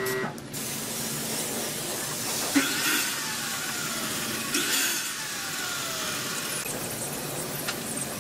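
Compressed-air spray gun hissing steadily while spraying finish, with louder bursts of spray about three and five seconds in.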